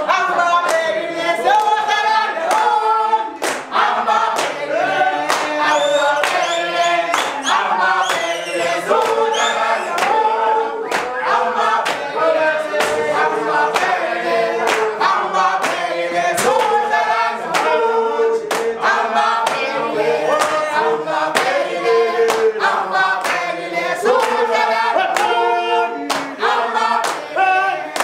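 A group of young voices singing a song together, with frequent sharp claps and slaps of a gumboot dance keeping the beat.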